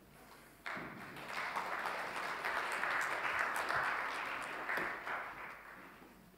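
A congregation applauding, starting suddenly about a second in, swelling and then dying away near the end, with a couple of low thuds in the middle.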